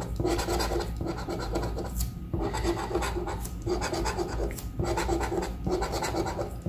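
Scratch-off lottery ticket being scraped with a hand-held scratcher tool: quick back-and-forth scraping strokes in runs of about a second, with brief pauses between the runs.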